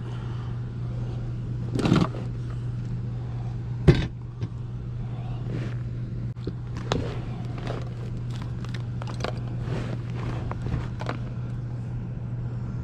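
Scattered knocks and clicks of drain parts being handled and fitted, the loudest a sharp knock about four seconds in, over a steady low hum of running equipment.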